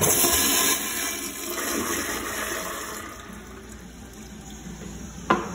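American Standard Cadet pressure-assisted toilet flushing: a sudden loud hissing whoosh that eases after under a second, then water rushing down the bowl, fading over about three seconds. A sharp knock near the end.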